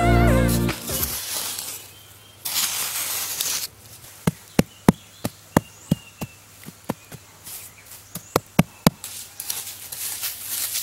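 Small hand trowel digging into soil: a short scrape, then a run of about fifteen sharp chops as the blade strikes into the earth, roughly three a second.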